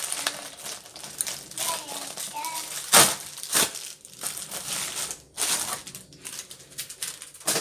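Plastic poly mailer bag crinkling and crackling as it is pulled open and handled, in irregular bursts with a sharp crackle about three seconds in and another just after.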